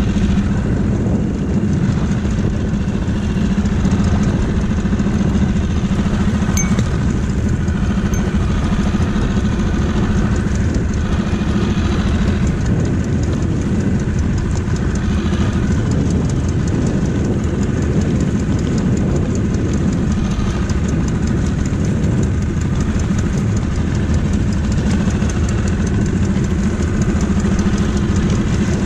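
Small boat's outboard motor idling steadily, an even engine hum with no change in speed.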